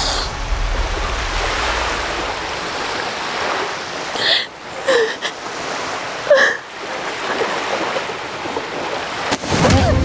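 Sea surf washing onto a beach, steady and noisy, with a woman sobbing and catching her breath three times in the middle.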